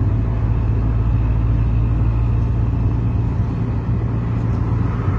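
Hyundai HR light truck's diesel engine running with road noise inside the cab, a steady low drone.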